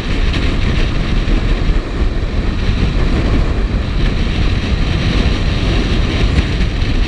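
Wind rushing over the microphone of a motorcycle being ridden along a road, with the bike's engine running steadily underneath.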